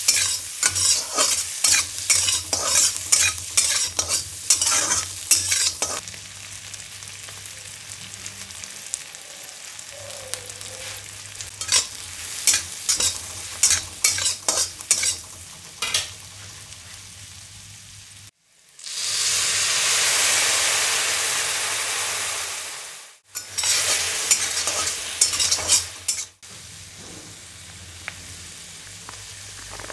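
A metal spatula scraping and clattering against a steel wok as onions and green peppers are stir-fried, over a steady frying sizzle. About two thirds of the way through comes a loud burst of sizzling lasting about four seconds, which cuts off suddenly.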